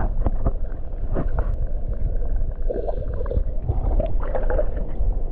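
Water churning, heard underwater: a steady muffled low rumble with scattered knocks and clicks as a landing net is swept through a rock pool and lifted with a fish in it.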